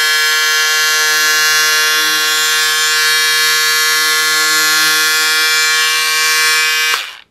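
Pink Power cordless electric scissors running with a steady, loud buzz as they cut through doubled-over layers of waterproof polyvinyl fabric; the motor cuts off near the end.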